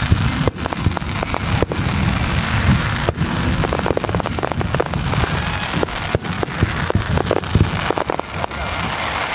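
Aerial fireworks shells bursting in quick succession: many loud bangs and sharp cracks over a continuous crackle.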